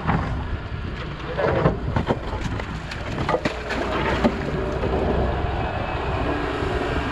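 Doosan 140W wheeled excavator's diesel engine running under load while the bucket digs into a dirt bank, with several scrapes and knocks of the bucket against earth and rock between about one and a half and four seconds in. Wind buffets the microphone.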